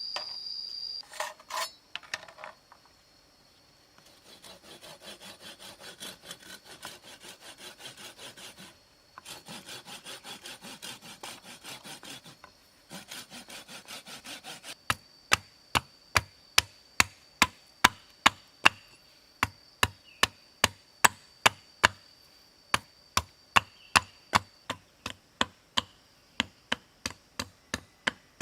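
Wood being worked by hand: quick, even sawing or rubbing strokes for about ten seconds, broken twice, then sharp chopping strikes on wood about two a second. A steady high insect drone sounds behind.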